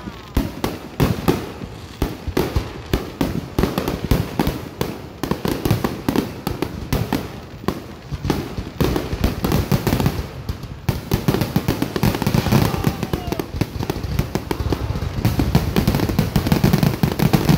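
Aerial firework shells bursting one after another, many bangs and crackles overlapping, growing louder and denser near the end.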